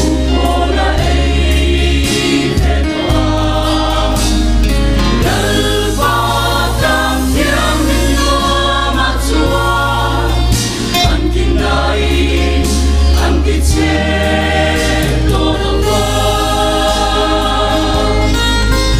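Mixed choir of women and men singing a hymn in parts, loud and continuous, over deep sustained bass notes that shift with the chords.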